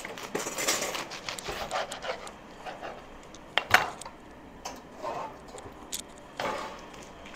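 Kitchen handling sounds during food preparation: soft scraping and rustling with light clinks of dishes and utensils, and one sharp knock about halfway through.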